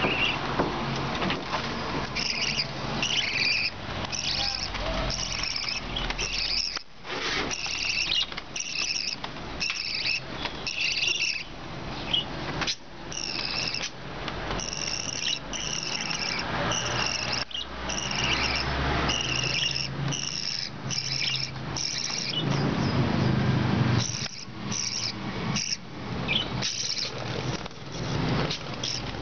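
Budgerigars chirping: quick, repeated short chirps that run on throughout, with a low rumble for a couple of seconds about three-quarters of the way through.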